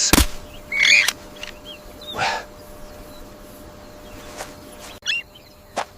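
A few short animal calls, one about a second in, a noisy one a little after two seconds and quick high ones near the end, after a sharp knock at the very start.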